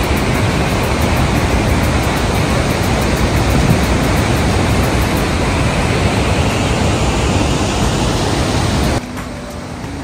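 Loud, steady rushing of a waterfall and whitewater rapids in a narrow canyon. About nine seconds in it drops suddenly to a quieter level.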